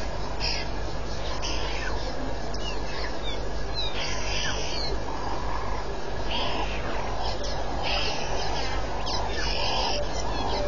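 A run of short, soft animal hoots, about one or two a second, from about halfway through, with high bird chirps and a steady low hum.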